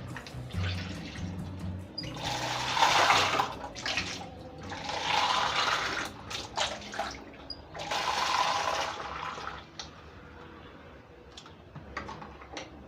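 Water rushing or splashing in three separate bursts, each about a second and a half long, with soft background music at the start.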